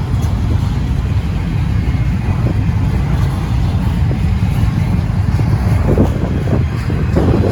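Slow-moving intermodal freight train rolling past, a steady low rumble, with wind buffeting the microphone.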